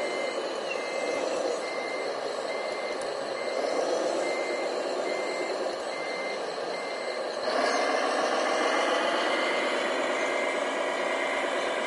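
Reversing beeper of a radio-controlled scale MAN 6x6 tipper truck, one steady beep about twice a second, over the running noise of the model trucks' drives, which gets louder about seven and a half seconds in as the truck pulls forward.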